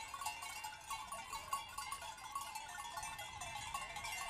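Many sheep bells clinking irregularly and overlapping as a large flock moves along.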